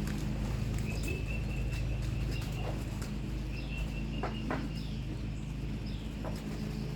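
Young pigeons peeping in short, high, falling squeaks, over light knocking and a steady low hum.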